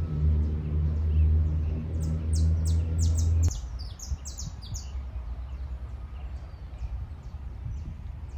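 A loud, low, steady engine-like hum cuts off suddenly about three and a half seconds in. Birds chirp high above it from about two seconds in, and faint chirps go on afterwards.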